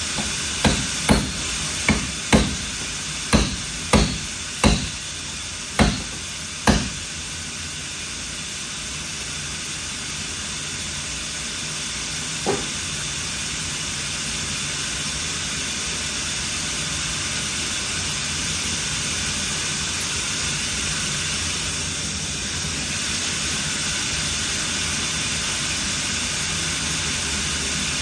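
A quick run of about nine sharp knocks in the first seven seconds, then one fainter knock about twelve seconds in, over a steady hiss of shop noise.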